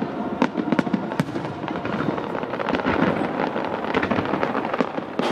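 Fireworks going off: a dense run of sharp cracks and pops in quick, irregular succession over a steady crackling rumble.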